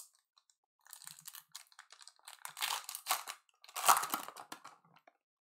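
Plastic trading-card pack wrapper being torn open and crinkled by hand, in a run of crackling bursts that starts about a second in, is loudest around four seconds and stops about five seconds in.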